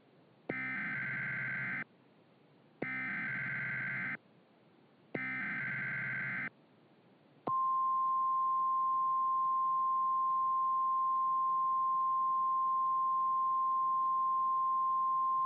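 NOAA Weather Radio alert signal: three short bursts of SAME digital header tones, each about a second and a half long, then the steady single-pitch 1050 Hz warning alarm tone beginning about seven and a half seconds in. This is the alerting sequence that opens a broadcast warning message, here a winter storm watch.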